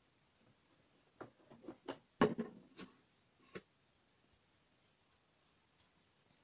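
Shiny patterned dress fabric being handled by hand: a quick run of short rustles and light taps starting about a second in, the loudest a little after two seconds, the last at about three and a half seconds.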